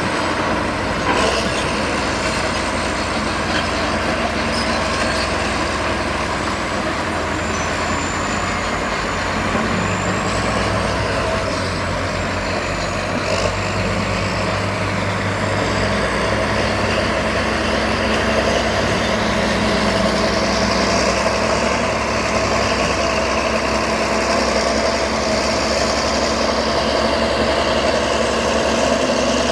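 Heavy diesel earthmoving machinery running steadily, with a thin high whine above the engine that wavers in pitch.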